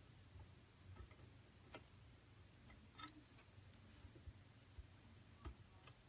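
Near silence with a handful of faint, scattered clicks from pliers and fingers handling small parts inside an open CB radio chassis. The clearest click comes about three seconds in.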